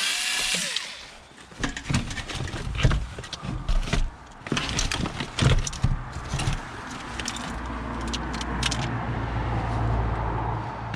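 Scrap being handled by hand: a run of sharp clicks, knocks and rattles, with a steady low engine hum building through the second half.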